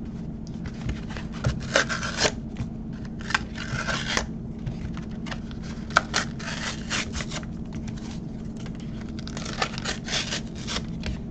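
Plastic blister packaging and its cardboard backing being pried and torn open by hand: irregular bursts of crinkling and scraping, with a sharp click about six seconds in. The blister is hard to get into.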